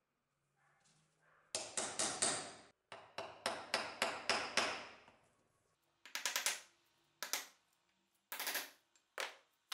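Small hammer striking metal on a hatchet clamped in a bench vise: quick runs of sharp blows, several a second, then shorter bursts with pauses between. Most likely peening the rivets that fix the handle to the hatchet.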